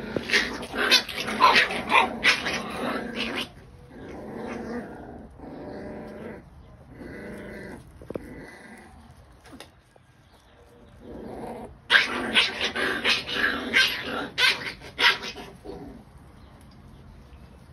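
Puppies play-fighting, growling and yapping in loud flurries during the first few seconds and again from about twelve seconds in, with quieter growls between.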